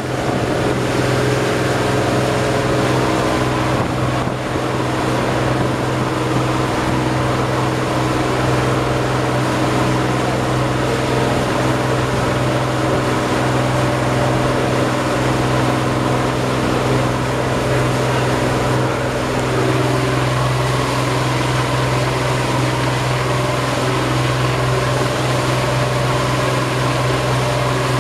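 Engine of a 32-foot Japanese wasen fishing boat running steadily under way, a constant low drone, with the rush of water and wake along the hull.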